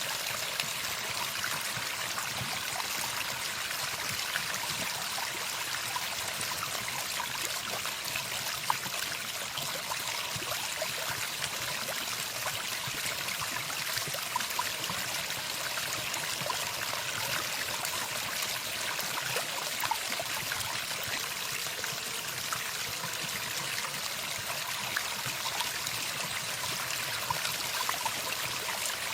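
Running water flowing steadily, an even stream-like rush with fine trickling.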